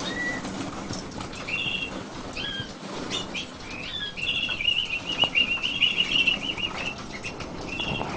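Small caged birds chirping, with a fast run of repeated chirps about halfway through. Wing flutters and scattered clicks sound among the calls.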